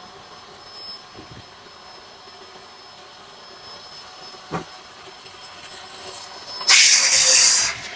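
Electric inflator pump running steadily, blowing air into an inflatable column that is not yet full, a faint high whine over the hiss. A short knock about halfway, and a loud burst of rushing hiss lasting about a second near the end.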